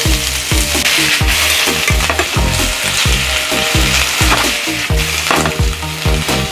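Vegetables sizzling in hot oil in a stainless steel frying pan as they are stir-fried, a metal slotted turner scraping and tossing them against the pan.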